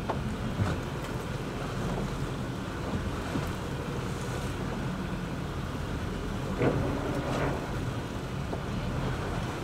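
Wind and waves on an offshore boat over a steady low engine hum, with wind buffeting the microphone. A brief louder noise stands out about seven seconds in.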